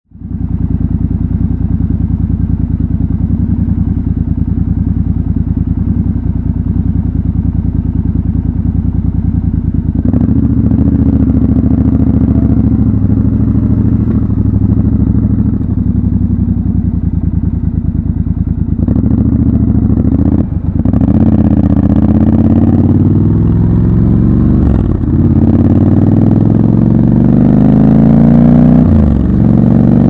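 Triumph Scrambler 1200 XC's parallel-twin engine, idling steadily at first, then pulling away and running at low speed. In the last third it accelerates through the gears, its pitch rising in sweeps broken by three brief dips at the gear changes.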